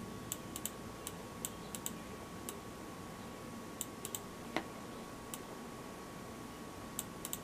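Buttons of a Philips Momentum (SPK9314) wired gaming mouse clicking: light, sharp clicks, often in quick pairs or threes like double-clicks, with pauses between them.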